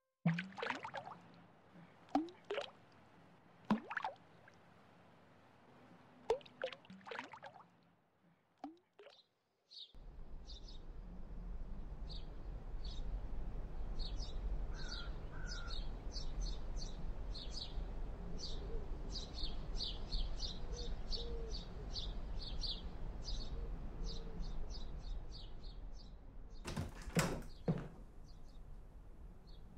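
Animation sound effects: a quick run of many short, high bird chirps over a steady low rumble. Before it come a few scattered clicks and short sliding sounds, and two loud hits fall near the end.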